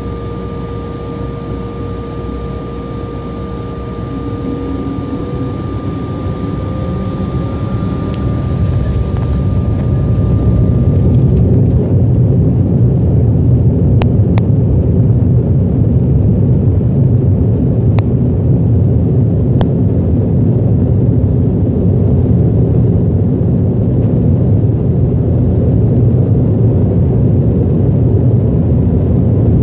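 Jet airliner heard from the cabin during its takeoff roll: the engines' steady whine rises as they spool up to takeoff thrust, and the sound swells over several seconds into a loud, steady rumble as the plane speeds down the runway.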